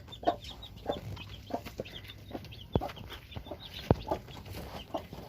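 Domestic chickens clucking in many short calls, with chicks peeping high alongside. Two sharp knocks come near the middle and at about four seconds in.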